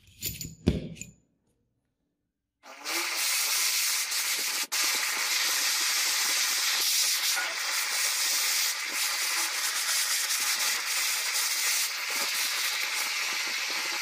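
Two light knocks in the first second, then, after a short silence, the steady hiss of a handheld butane torch burning as it heats a steel rod clamped in a vise.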